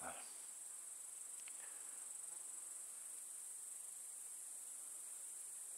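Bush crickets chirring in a steady, high-pitched chorus.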